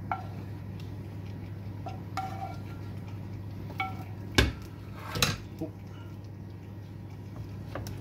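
Cookware knocking and clinking: a spatula tapping vegetables off a frying pan into a saucepan. There are a few sharp knocks, some with short ringing tones; the loudest comes about four and a half seconds in, with another a second later. A steady low hum lies under it.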